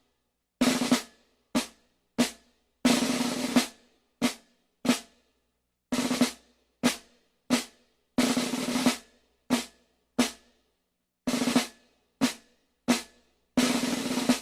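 Snare drum played as a sequence of single sharp strikes alternating with short rolls lasting up to about a second, each stroke dying away quickly into silence.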